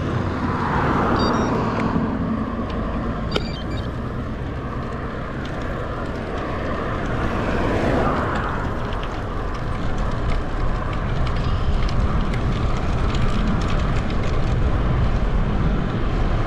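Wind noise on a bike-mounted action camera's microphone fitted with a fuzzy windscreen cover, a low steady rush that grows louder from about ten seconds in as the bike gathers speed.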